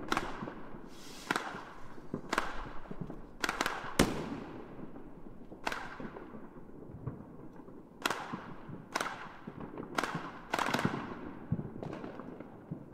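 Fireworks bursting: about a dozen sharp bangs at irregular intervals, some in quick pairs, each trailing off in a rumbling echo.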